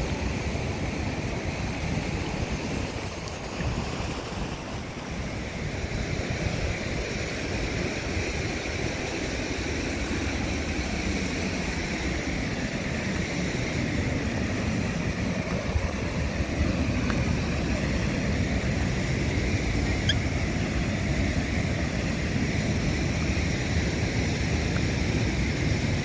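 Steady rushing noise of wind buffeting the microphone over moving water, with no distinct events.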